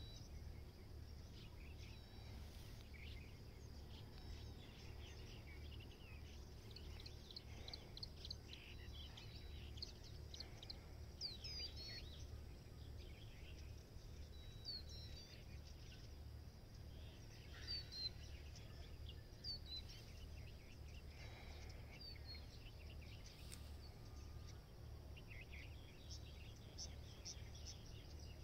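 Faint birds chirping and calling outdoors, short scattered chirps and quick whistled notes over a steady low hum.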